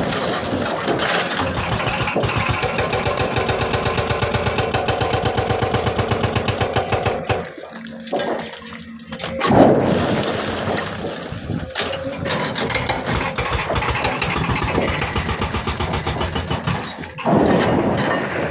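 An engine running with a fast, even beat. It drops away about seven and a half seconds in and picks up again with a loud burst about two seconds later, then runs on.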